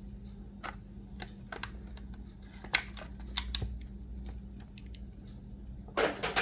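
Clicks and crackles of a clear plastic packaging tray being handled while a die-cast model car is pulled out of it, with a sharper snap about three seconds in and a short rustling burst near the end.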